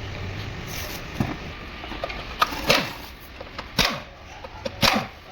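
A handful of separate sharp knocks and clatters, the loudest two near the end, from tools and parts being handled in a workshop.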